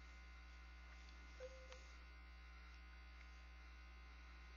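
Near silence: a steady low electrical hum, with a faint click about a second and a half in.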